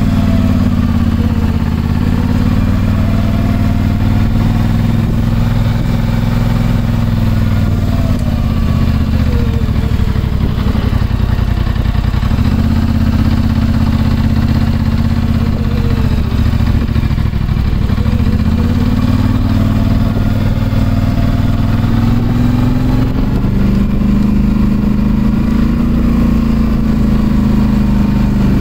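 Polaris ATV engine running as it is ridden slowly, its pitch rising and falling several times with the throttle.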